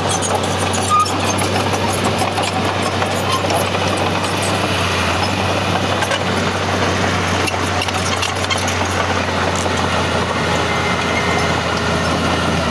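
Heavy diesel earthmoving machinery running steadily, with a constant low engine drone and scattered light clanks and clicks.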